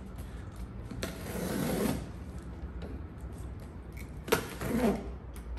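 Box cutter slicing the packing tape on a cardboard box, with cardboard scraping and rustling as the box is handled. A sharp click comes just after four seconds, followed by a short scrape.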